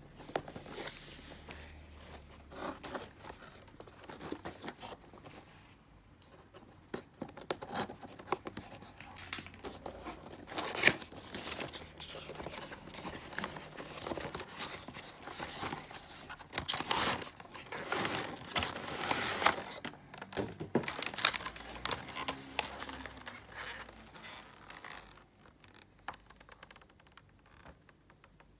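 Cardboard toy box and clear plastic tray being opened and handled: irregular scraping, tearing and crinkling with sharp clicks, the loudest snap about 11 seconds in.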